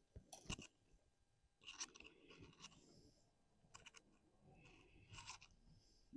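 Faint, scattered clicks and scratches of bonsai wire being wrapped and pressed around a privet branch, in a few short clusters.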